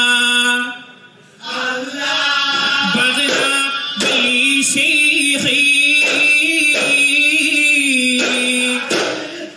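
Duffmuttu song: voices singing together, accompanied by strikes on duff frame drums. A held note breaks off about half a second in. After a brief dip the singing resumes, with scattered drum strikes under it.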